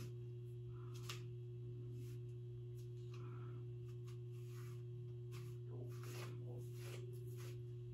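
Faint, scratchy strokes of a comb drawn through a synthetic wig's fibres, coming now and then, over a steady low hum.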